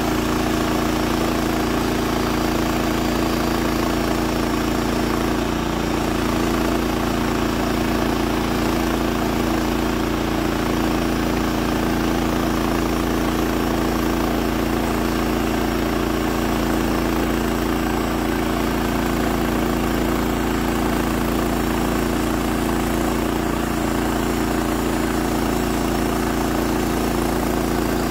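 Woodland Mills HM126 bandsaw mill's 14 hp gasoline engine running steadily under load as the band blade is pushed through a Douglas fir log.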